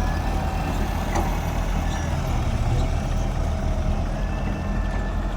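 Large diesel engine running steadily with a low drone.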